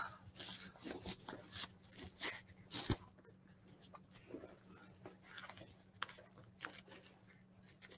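Handling noise from a nylon backpack as a soft ballistic panel is worked out of its back sleeve: a run of short rustles and fabric scrapes, with one light knock about three seconds in.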